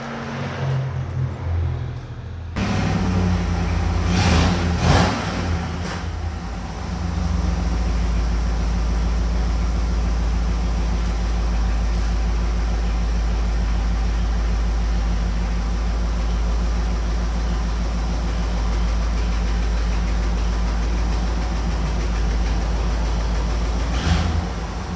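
Jeep J20 dump truck's engine running. It comes in abruptly about two and a half seconds in, swells briefly, then settles to a steady low drone.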